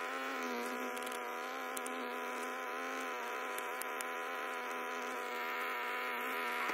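Honeybees buzzing close by, a steady hum with a few faint ticks in the first half.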